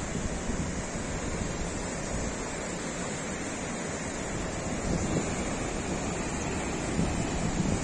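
Fast mountain river rushing over rocks, a steady white-water noise, with some wind buffeting the microphone.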